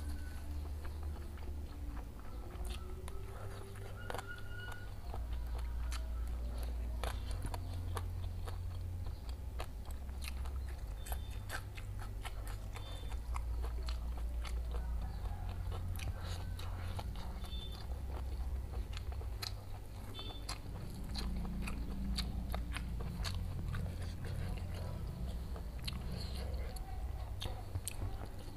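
Close-miked eating: a mouthful of fried tofu and tempeh with chilli sambal being bitten and chewed, with many small sharp crunches scattered throughout. A steady low hum runs underneath.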